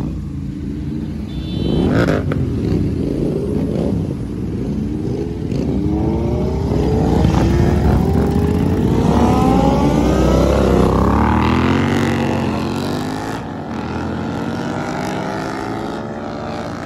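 A group of motorcycles accelerating away one after another, their engine notes overlapping and repeatedly climbing in pitch as they rev up through the gears. The sound is quieter in the last few seconds as the bikes get farther off.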